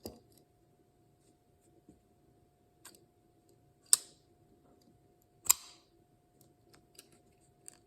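Spyderco Para Military 2 folding knife being opened and closed slowly: a few faint clicks, then two sharp metallic clicks about a second and a half apart as the blade and its compression lock snap into place.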